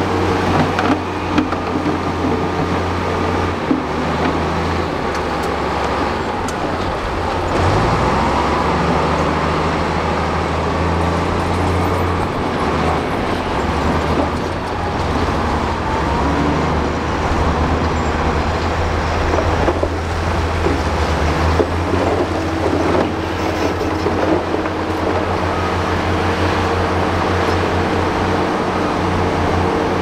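Crawler bulldozer's diesel engine running under load while pushing dirt and rock, its engine note dropping and rising several times as the load changes, with scattered knocks over the noise of the work.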